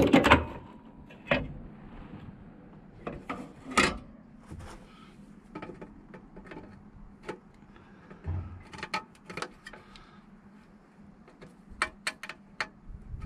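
Pliers and hands working at a car's air filter housing: irregular clicks, knocks and scrapes of metal and plastic, with louder knocks at the very start and about four seconds in.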